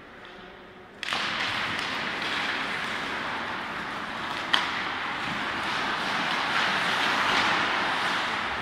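Ice hockey play after a faceoff: skate blades scraping and carving the ice start suddenly about a second in and go on steadily, with a single sharp crack about four and a half seconds in.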